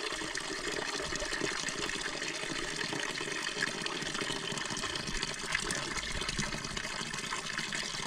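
Water pouring steadily from the tap of a plastic storage tank into a stainless steel bowl, a continuous splashing stream filling the bowl.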